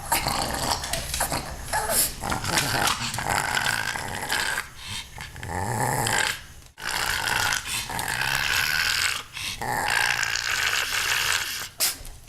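Pug making growly vocal noises in long stretches, broken by a few short pauses.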